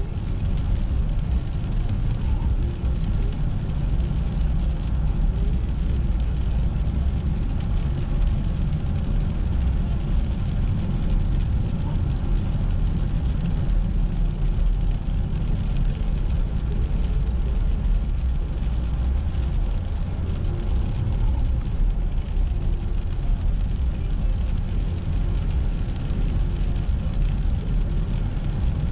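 A car driving along, with a steady low rumble of road and engine noise.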